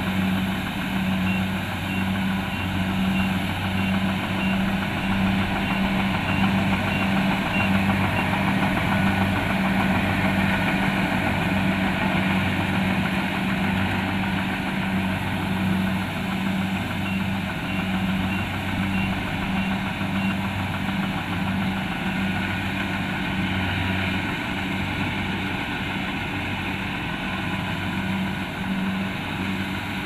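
Kubota DC-70 Plus rice combine harvester's diesel engine running steadily, with an evenly pulsing low hum under a broad mechanical rattle. Faint short high beeps repeat in two runs, near the start and again past the middle.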